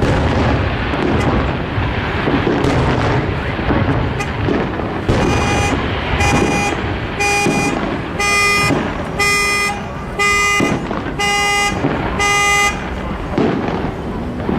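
A vehicle horn honking in an even rhythm, about once a second, eight times, in the pattern of a car alarm, starting about five seconds in, over the chatter of an outdoor crowd.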